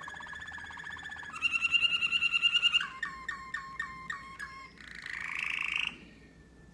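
American Singer canary singing a string of varied phrases: a steady trill, then a louder, faster, higher trill, then a run of quick down-slurred notes, then a rising buzzy phrase, falling silent about six seconds in.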